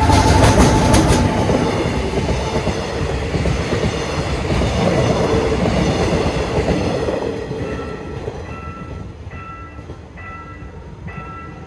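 A train passes over a level crossing. There is a loud rumble with sharp wheel clacks in the first second or so, and the rumble fades after about seven seconds. The crossing's warning bell then rings on in regular pulses.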